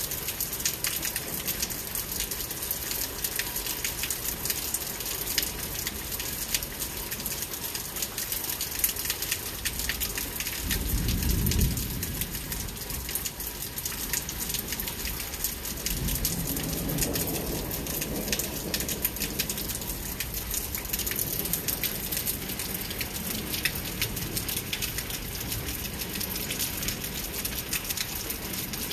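Steady heavy rain, a dense wash of many small drop hits, during a summer thunderstorm. Thunder rumbles low about eleven seconds in, followed a few seconds later by a longer, softer roll.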